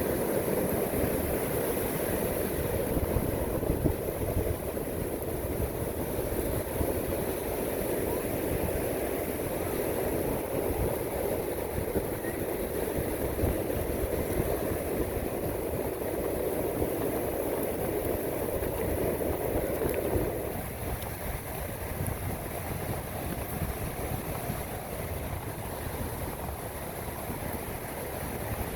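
Ocean surf washing on the beach, with wind rumbling on the microphone; a louder rushing layer drops away suddenly about twenty seconds in.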